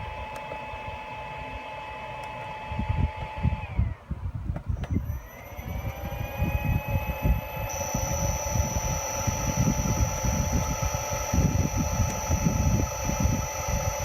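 Electric motor run from a variable frequency drive, its steady whine dropping away as the drive stops it about four seconds in, then gliding back up to a steady pitch as it is started and ramps up to speed again. An uneven low rumble runs alongside.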